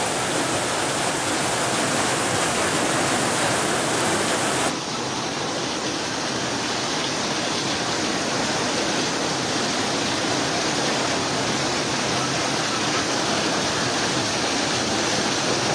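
Heavy rain pouring and floodwater rushing along a street, a steady dense hiss of water. About five seconds in, the sound abruptly turns slightly duller and stays that way.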